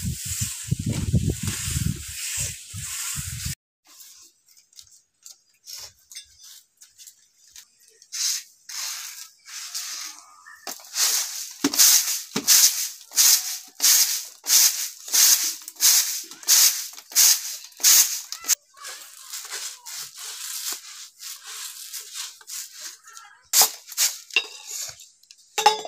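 Rice being winnowed on a flat woven winnowing tray: rhythmic rustling, rattling strokes as the grains are tossed and caught, about two a second. Before that, for a few seconds, a hand rubbing wet mud across an earthen floor.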